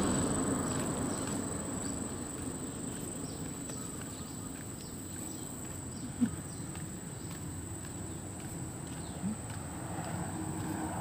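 Steady high-pitched insect trilling with soft, regular footsteps on asphalt. A passing car fades away over the first couple of seconds, and two brief low sounds come about six and nine seconds in, the first of them the loudest.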